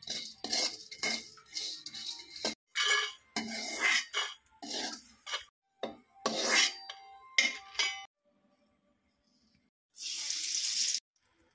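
Steel cookware handled while preparing dried prawns: a run of separate clatters, scrapes and splashes from the bowls, spoon and wok as the prawns are soaked in water. About ten seconds in there is a steady hiss lasting about a second as white granules are sprinkled into the oiled wok.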